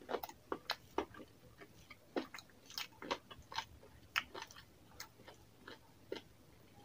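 Close-miked chewing of chicken curry and rice, heard as a quick, irregular run of wet mouth clicks and smacks, about three a second.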